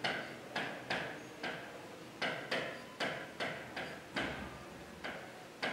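Marker pen tapping and clicking against a writing board while writing, a string of short sharp taps, irregular, about two a second.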